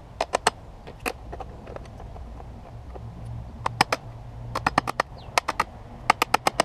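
Claw hammer striking a screwdriver driven into the plastic lid of a lead-acid car battery, cracking the welded top off: sharp strikes in quick clusters of three or four, with short pauses between.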